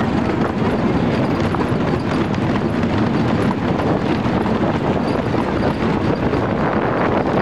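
Wooden roller coaster train clacking and rattling steadily along its track.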